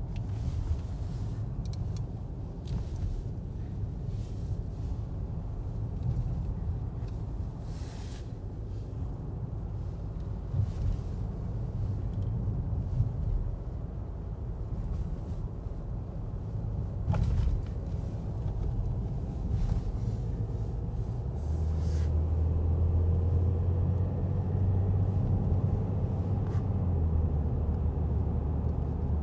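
Car on the move, heard from inside the cabin: a steady low rumble of tyres and engine, with a few light knocks. About two-thirds of the way through a steadier low drone sets in and it gets a little louder.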